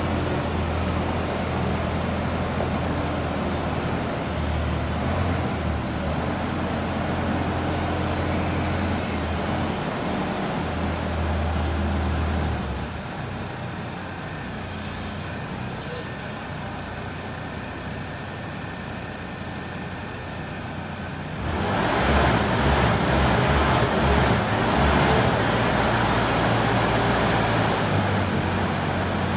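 Diesel engine of a Bobcat telehandler running with a steady low hum. About halfway through it drops to a quieter idle, and a few seconds before the end it grows louder and noisier again as the machine works.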